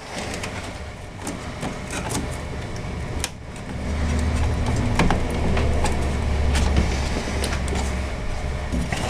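Power-supply cables and plastic connectors being handled inside a computer case: scattered clicks and rustles, joined by a steady low rumble from about four seconds in.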